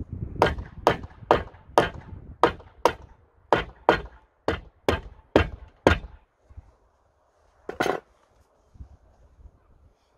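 Hammer blows on wood: about a dozen sharp strikes, roughly two a second, stopping about six seconds in, then one longer, duller knock near the end.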